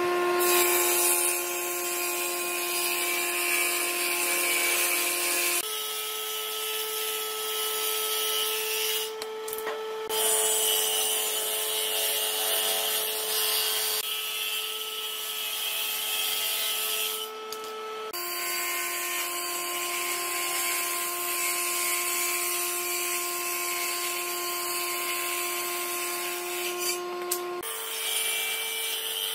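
Table saw on a combination woodworking machine running while its blade cuts a series of notches across a glued-up block of wooden strips fed along the fence. A steady motor whine with a hiss of cutting, shifting in pitch abruptly a few times, with two brief dropouts.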